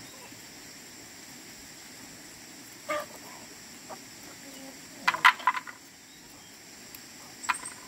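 Chickens clucking in a few short calls, the loudest cluster about five seconds in, over a steady high-pitched drone.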